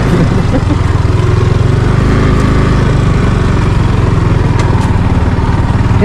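Yamaha R15's single-cylinder engine running steadily at low speed as the motorcycle climbs a rough stone-paved track.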